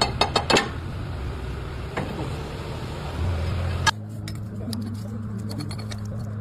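Quick metallic taps in the first half second, a single sharp metal clank about four seconds in, then a steady low machine hum.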